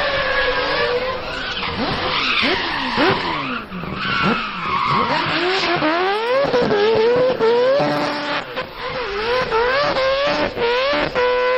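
Four-rotor Mazda RX-7 rotary engine revving hard, its pitch sweeping up and down again and again in quick blips, with tyres squealing, loudest in the first half.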